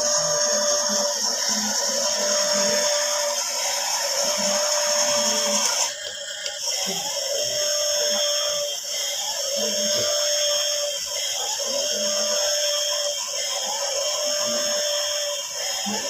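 Toy RC truck running, its small electric motor and gears giving a steady high-pitched whine, with a short break about six seconds in.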